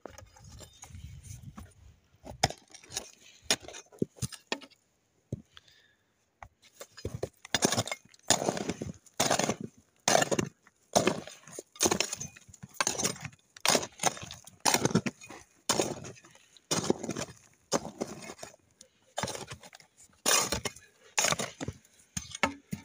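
Pickaxe chipping at old cement and the rock beneath it, with sharp blows at about one a second. The blows start light and scattered and turn heavy and regular about seven seconds in.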